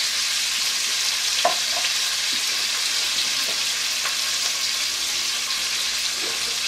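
Chopped onion and garlic sizzling steadily in hot fat in a cast-iron Dutch oven over a medium gas flame, with a light click about one and a half seconds in.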